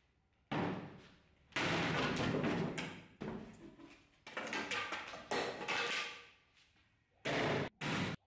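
Bardiche axe blade chopping into a board of wooden planks: a string of heavy strikes, each a sudden crack that trails off as the wood splinters and loose pieces clatter, with two short, abruptly cut hits near the end.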